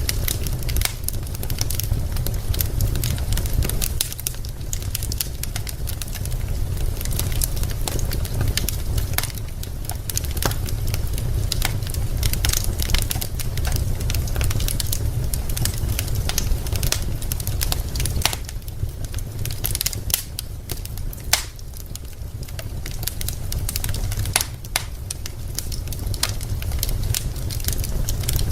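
Wood fire crackling, with many small irregular pops and snaps over a steady low rumble, and one sharper pop about three quarters of the way through.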